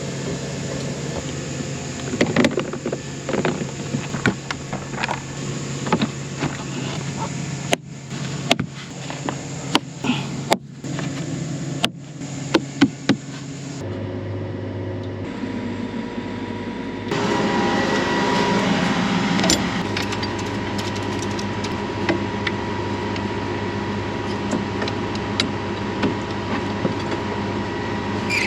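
Farm machinery engine running steadily, with scattered metallic clanks and knocks over it. The engine sound changes abruptly about halfway through and runs louder after that.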